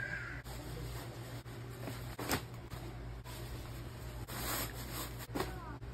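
Clothes rustling and brief soft knocks as garments are handled and laid into a suitcase, over a steady low hum.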